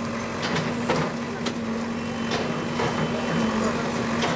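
Backhoe loader's diesel engine running with a steady hum, with scattered sharp knocks and clatters from the demolition work.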